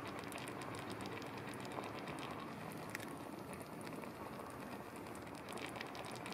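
Chicken pieces simmering in a pot of coconut milk and spice paste: a steady bubbling hiss with many small, scattered pops.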